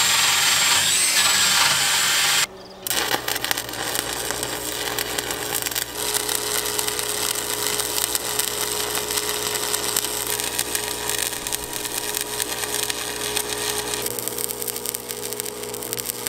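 A cordless drill spins a wire brush against rusty steel for about two and a half seconds. After a short break, a stick-welding arc from a Miller Thunderbolt welder crackles steadily over a steady hum.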